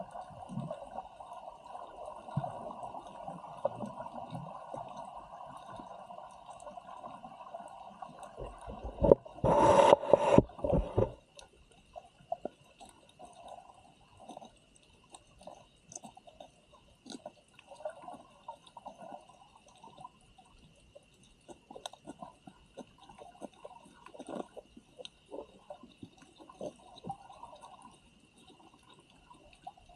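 Muffled underwater water noise with bubbling and gurgling. A loud rush of water comes about nine seconds in and lasts about two seconds, and afterwards there are scattered faint crackles and gurgles.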